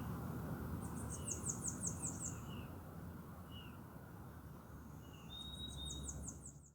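Small birds singing: two fast runs of about eight high, short, falling notes, about four seconds apart, with scattered short chirps and a brief thin whistle, over a steady low rumble of background noise. The sound fades out near the end.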